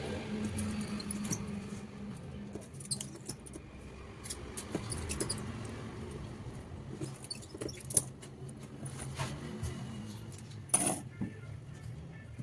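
Light clicks and taps of small tools and phone parts being handled during a phone speaker repair, scattered irregularly, with a sharper tap about 8 seconds in and another about 11 seconds in, over a faint steady low hum.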